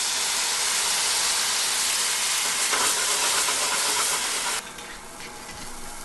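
White wine sizzling and steaming loudly as it hits a hot frying pan of sautéed shallots and garlic, deglazing the pan. The sizzle drops off sharply about four and a half seconds in and carries on more quietly.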